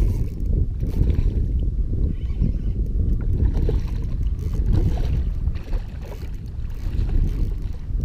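Wind buffeting an action-camera microphone over water sloshing against a kayak hull, with a few brief splashes from a hooked fish thrashing at the surface beside the boat.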